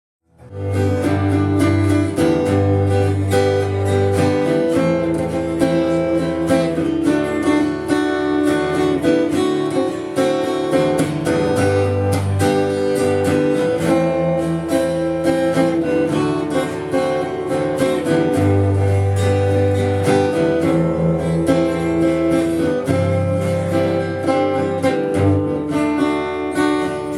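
Acoustic guitar strumming the instrumental intro of a folk song, steady chords over low bass notes that change every second or two.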